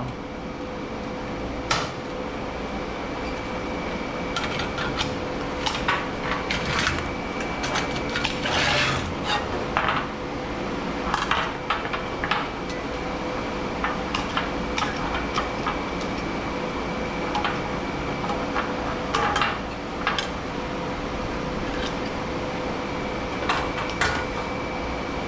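Irregular metallic clanks, clicks and rattles of steel electrical equipment and parts being handled and pulled apart, over a steady hum with a faint high whine.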